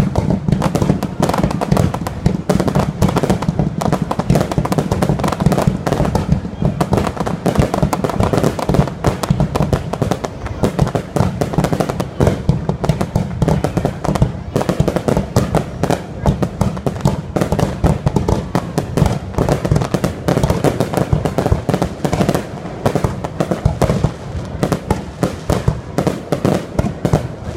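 Fireworks display: a dense, unbroken run of bangs and crackling from aerial shells bursting and rising.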